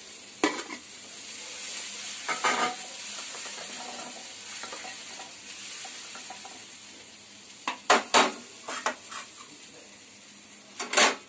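Boiled white chickpeas being stir-fried in a hot pan for chickpea sundal: a steady sizzle with the stirring spoon scraping and clinking against the pan, the clinks coming in short clusters and loudest about eight seconds in and near the end.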